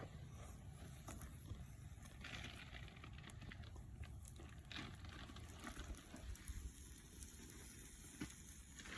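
Faint crackling of a wood fire in a fire pit, scattered small ticks over a steady low rumble.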